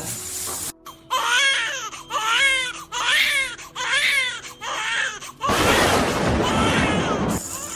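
Newborn baby crying: about five wailing cries in quick succession, each rising and falling. Near the end comes about two seconds of loud rushing noise.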